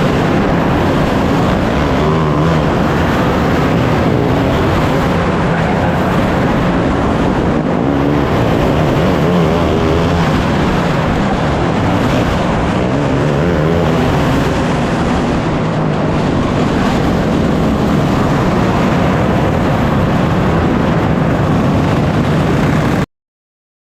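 A field of winged sprint cars racing on track, many engines running hard at once, their pitches rising and falling as they pass. The sound cuts off abruptly near the end.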